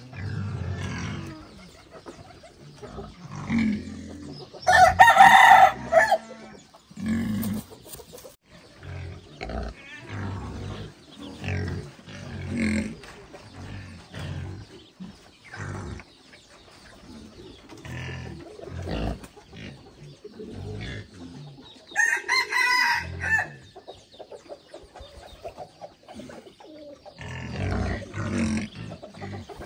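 A rooster crows twice, about five seconds in and again about two-thirds of the way through, each crow lasting about a second and a half. Between the crows there are scattered soft low scuffling and rustling sounds.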